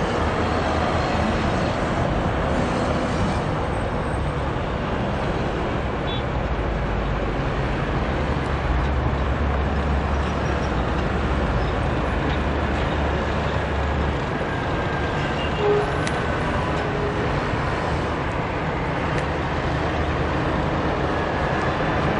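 Bus engine running close by amid steady traffic noise, its deep rumble growing stronger from about six seconds in and easing off about eight seconds later.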